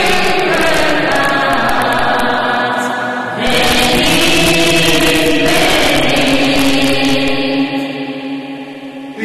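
Orthodox church choir chanting in long held notes. The singing grows louder and fuller about three and a half seconds in, and fades away near the end.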